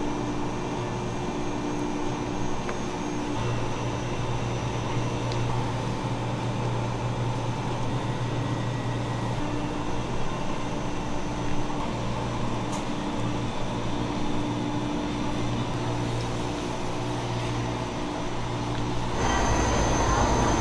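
Steady hum and hiss of kitchen machinery, with a faint tone that comes and goes; near the end it turns louder and rougher.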